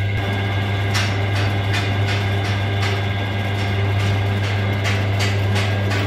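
Metal lathe running with its chuck spinning a splined truck gearbox shaft: a steady motor hum, with a light rhythmic ticking about two to three times a second from about a second in.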